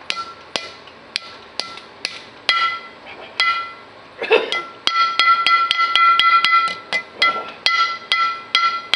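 Ball-peen hammer tapping a new seal into the hub bore of a John Deere 4400 combine's center drive pulley, each tap ringing briefly off the metal. The taps are light and come about two a second, with a quick run of about five a second midway.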